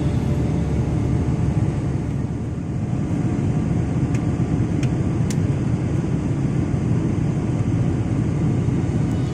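Jet airliner cabin noise in flight: the steady, low rumble of the engines and airflow heard from inside the passenger cabin.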